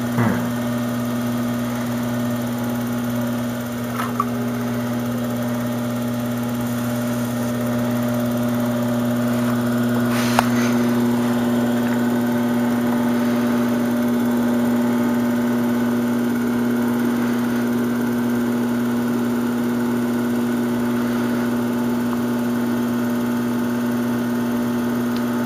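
Electric pottery wheel motor running with a steady hum while the wheel spins, with a brief click about ten seconds in.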